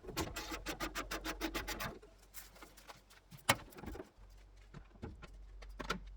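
Hand tools working on a car's body fasteners: a fast run of clicks lasting about two seconds, then one sharp knock, the loudest sound, with a fainter knock near the end.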